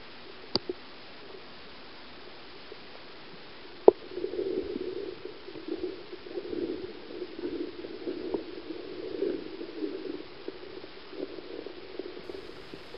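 Stream water heard through a submerged camera: a steady hiss, two sharp knocks, then from about four seconds in a muffled, irregular underwater gurgling.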